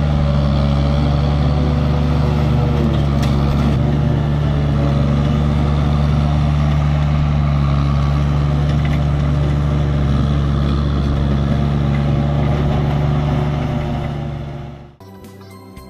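MultiOne mini loader running steadily, with its front-mounted grass mower attachment working through grass. The machine sound fades out near the end and guitar music comes in just before the end.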